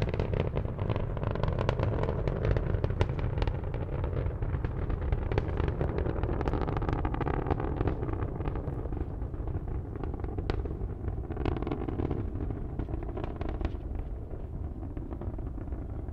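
Space Shuttle Columbia's launch noise heard from the ground miles away: its solid rocket boosters and main engines giving a deep rumble full of crackling pops, slowly fading as the vehicle climbs away.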